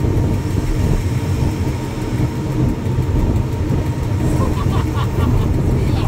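Diesel passenger train running along the track, heard aboard: a steady low rumble of engine and wheels.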